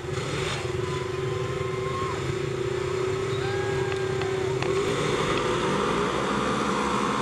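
A row of side-by-side UTVs running at a race start line, several engines idling together, with engine pitches rising and falling a little now and then and the sound getting slightly louder about two-thirds of the way through.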